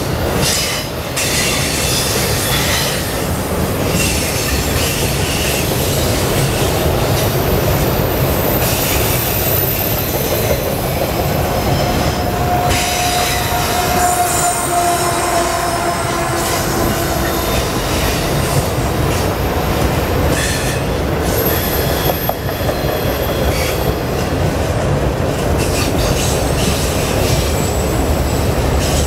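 Freight train of autorack cars rolling past on a curve: a steady rumble of wheels on rail with high-pitched wheel squeal coming and going and some clickety-clack at the rail joints. A mid-train diesel locomotive passes about halfway through.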